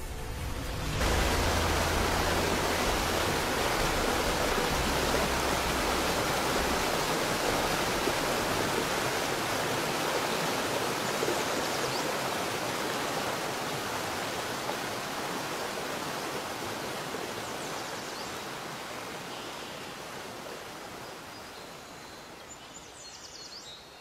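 Steady rushing roar of a tall waterfall's falling water, with a low rumble underneath for the first several seconds, fading out slowly over the second half.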